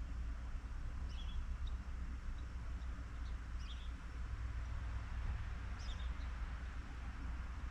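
Scattered short, high chirps of small birds, a few seconds apart, over a steady low rumble.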